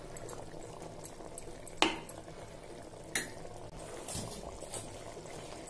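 Clay pot of biryani simmering over a gas flame with a steady low hiss, while a steel spoon clinks sharply against the pot twice, about two and three seconds in, as toppings are spooned on.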